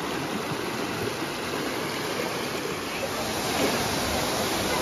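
Steady rush of water falling and running at a waterfall.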